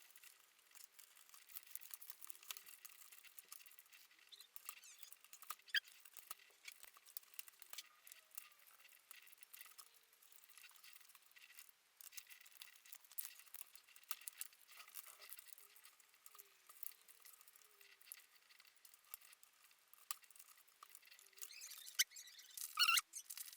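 Faint small plastic clicks and rattles of keycaps being handled and fitted onto a mechanical keyboard's switches, with a couple of short squeaks near the end.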